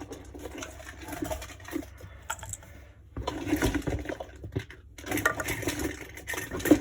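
Rummaging and handling of small metal putty tins, with clinks and knocks as they are picked up and set down, getting busier about halfway through.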